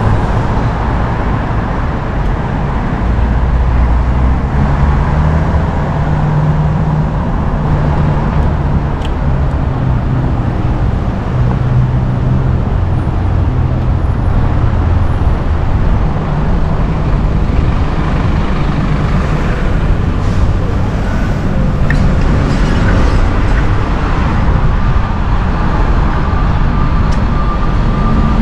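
City street traffic: motor vehicle engines running close by over a steady rush of road noise. Near the end a vehicle's reversing beeper starts, a repeated high beep.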